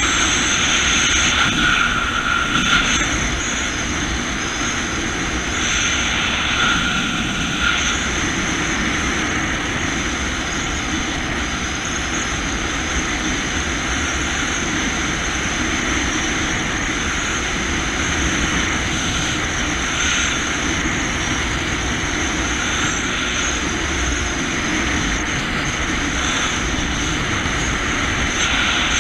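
Jet ski engine and jet pump running steadily while under way, a constant rush with a thin high whine on top.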